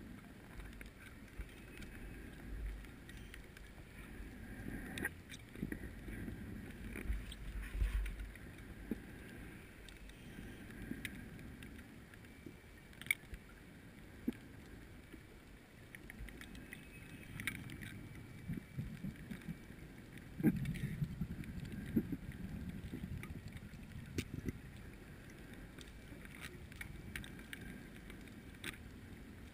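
Muffled underwater sound picked up through a GoPro's dive housing: a low, swelling rumble with scattered sharp clicks and knocks.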